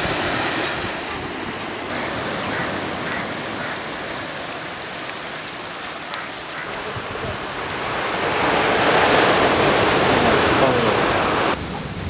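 Sea surf breaking and washing up on a sandy beach, a steady rush of waves that grows louder about two-thirds of the way through and drops off suddenly near the end.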